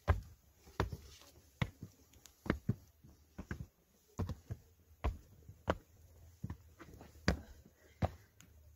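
Hiking footsteps on sandstone rock steps and slickrock, a short scuffing tap at a steady walking pace of a little more than one step a second.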